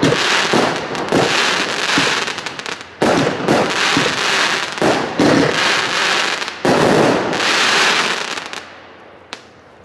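0.8-inch consumer firework cake firing a rapid series of shots and bursts with crackle effects. The sound comes in three loud surges about three seconds apart and fades out near the end.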